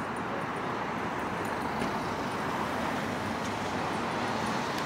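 Steady road traffic noise, an even hiss with no distinct events.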